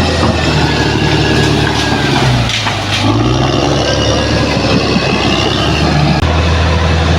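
Bulldozer's diesel engine running steadily. About two and a half seconds in, its pitch dips and bends briefly before it settles back.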